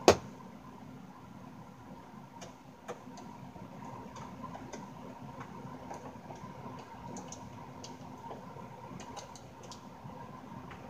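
A sharp knock at the start, then scattered light clicks and ticks of hands and a hand tool working the screws and casing of a Yamaha THR10X guitar amplifier as it is taken apart.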